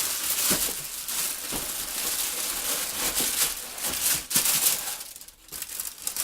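Packaging crinkling and rustling as items are handled and unwrapped from a box, in a continuous jumble of small crackles with a few light knocks, dying down near the end.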